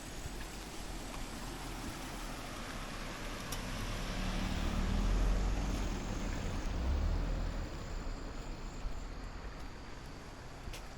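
A motor vehicle passing on the road. Engine and tyre noise swell to a peak about five seconds in, then fade away.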